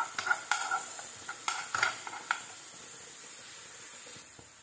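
A steel spoon scraping and clicking against a nonstick frying pan as green chilli and garlic paste is stirred in hot coconut oil, with the oil sizzling under it. The stirring stops a little past halfway, leaving only the quieter sizzle.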